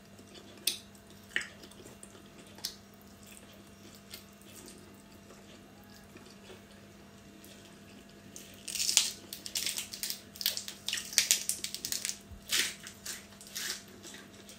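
Close-up eating sounds: a few faint wet mouth clicks, then from about eight seconds in a dense run of crisp crackling as a fresh green lettuce leaf is torn and eaten, over a faint steady hum.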